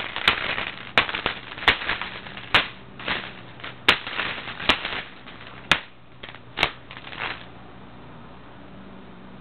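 Pump-up air-powered BB gun shooting session: an irregular string of about a dozen sharp cracks and clicks, some with a short rushing noise after them, that stops about seven seconds in.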